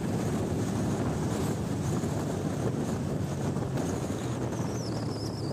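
Motorcycle riding on the road: steady wind and road noise on the microphone, with the engine's low drone beneath it.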